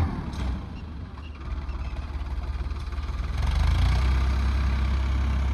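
Farmtrac 60 PowerMaxx 55 HP tractor's diesel engine running steadily under load while it pulls a 13-tine cultivator through sandy soil. The low hum dips early on and grows louder about three and a half seconds in.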